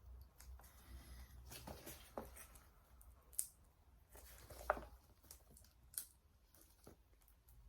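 Packaging on a product box being cut and worked open, faint rustling broken by a few sharp snips and clicks.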